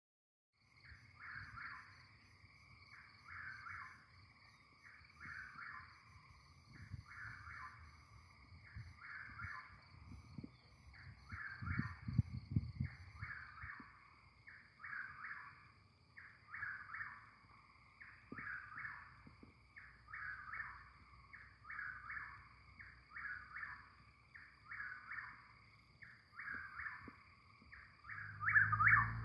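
Chuck-will's-widow singing, repeating its phrase about once every two seconds and growing louder near the end. A faint steady high tone runs beneath it, and a few low rumbles come about twelve seconds in.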